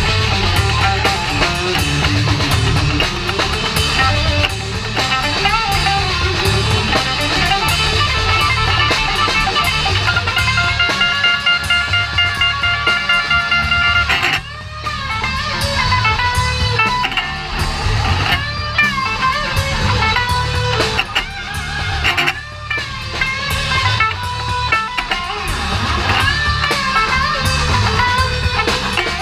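Live rock band playing, led by electric guitar over bass: the guitar holds one long note for several seconds about a third of the way in, then plays notes that bend and waver.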